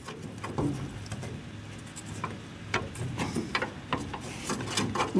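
Irregular light metal clicks and scrapes as a socket is worked up against a car's trunk-lid hinge and its spring, trying to seat it.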